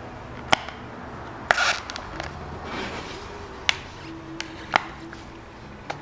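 Sharp plastic clicks and snaps as an Oakley A Frame goggle lens is worked into the frame's groove, about six of them at uneven intervals. A short scraping rustle follows the click about one and a half seconds in.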